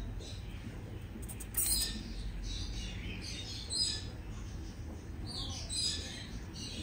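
Dwarf hamsters play-fighting, giving short high-pitched squeaks every second or so, with one sharp click about a second and a half in.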